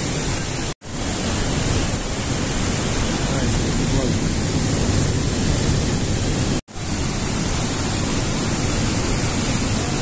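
Steady rushing of a large waterfall, cutting out to silence for an instant twice: about a second in and at about seven seconds.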